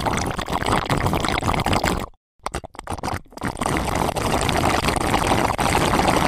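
Water splashing and churning as a large fish thrashes in a net. The splashing breaks off for a moment about two seconds in, then carries on.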